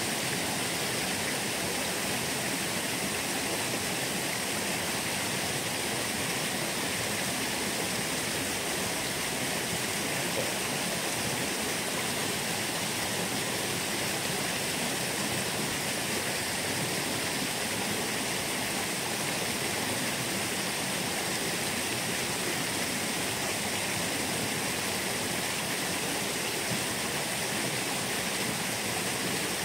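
Small river's water rushing steadily over its bed.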